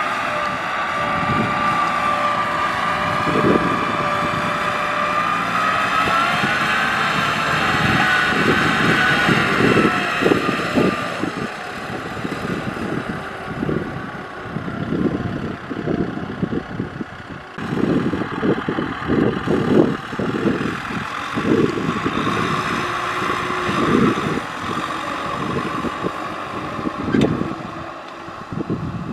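Kubota M6040SU tractors' diesel engines running under load as they pull trailers loaded with rice sacks, the engine note rising and falling in pitch. In the second half, irregular low thuds.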